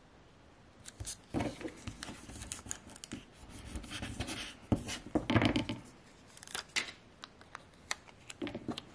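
Transfer tape being rubbed down with a felt-edged plastic squeegee over vinyl on a small acrylic blank: rustling and scraping of the tape with small clicks and taps, starting about a second in and loudest around five seconds in.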